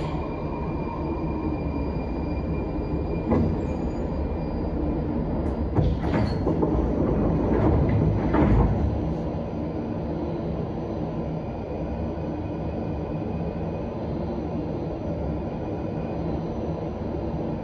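Prague Metro Line A train pulling up and standing at a station. A steady high whine from the train stops about three seconds in with a clunk. Clunks and a louder rush from about six to nine seconds in are the sound of the doors opening, over the constant hum of the standing train.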